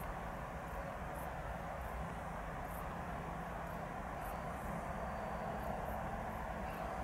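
Open-field ambience: a steady distant traffic hum, with short high insect chirps repeating every second or so.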